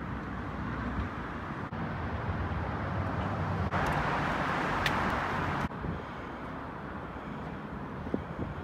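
Steady road traffic noise, the low rumble of vehicles crossing the bridge, mixed with wind on the microphone. The sound changes abruptly a few times, with a louder rushing hiss for about two seconds near the middle.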